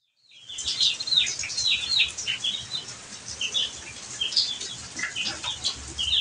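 Birds chirping: a busy run of short, high calls, many of them sweeping downward, fading in just after the start.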